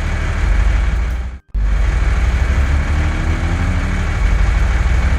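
A heavy vehicle engine running steadily, as of a cartoon construction vehicle, with a brief break about a second and a half in.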